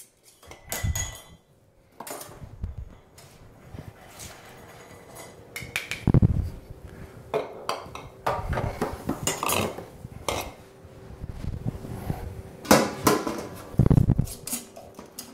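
Irregular clinks and knocks of glass mason jars and metal being handled. Near the end a jar is set down into a stainless steel pot.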